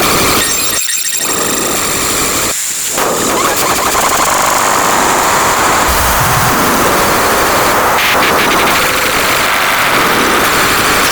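A loud, dense cacophony of overlapping sound effects and distorted noise, with brief dips in the low end about one and three seconds in.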